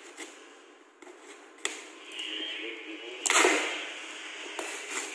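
Packing tape and brown paper wrapping being torn off a parcel by hand: a few crackles and small rips, then one loud tear a little over three seconds in.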